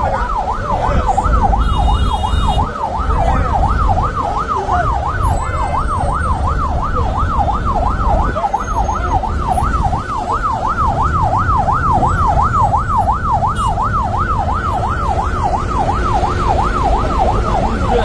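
Electronic siren yelping, its pitch rising and falling rapidly about two and a half times a second without a break, over a loud low rumble.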